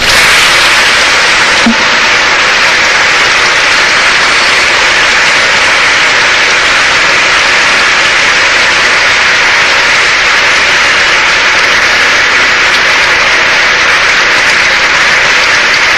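A large audience applauding: a dense, loud, steady wash of clapping with no separate claps standing out.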